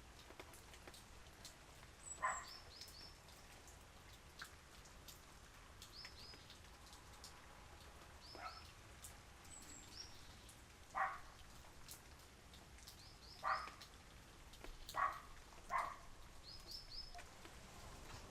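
Steady light rain with scattered drips, while small birds give short high chirps, often in quick runs of three. A short, louder, lower sound recurs every two to three seconds.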